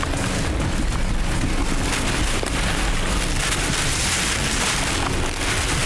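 Steady rustling noise with a low rumble underneath: leafy undergrowth and brush being pushed aside by people moving through it.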